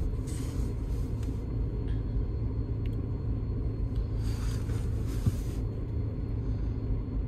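A stationary car idling, heard from inside its cabin as a steady low rumble. A brief hiss comes in about four seconds in and fades about a second and a half later.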